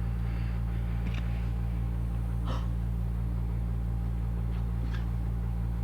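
Steady low hum, with a few faint soft clicks about 1, 2.5 and 5 seconds in.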